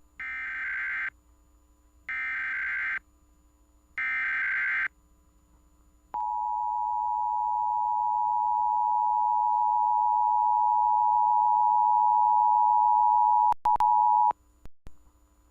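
Emergency Alert System tones relayed over AM radio, marking the start of a Required Monthly Test. First come three one-second bursts of buzzing SAME header data, about a second apart. Then the two-tone attention signal plays as a steady dual tone for about eight seconds, cutting out briefly twice just before it stops.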